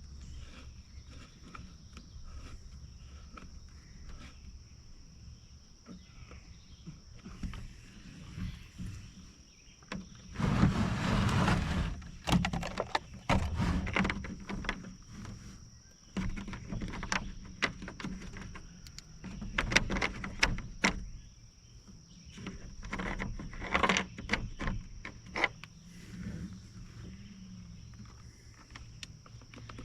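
Clicks, knocks and rattles of plastic parts and hand tools being handled as a string trimmer's cover is fitted back on, with a louder scraping rustle lasting about a second and a half about eleven seconds in. A faint steady high whine runs underneath.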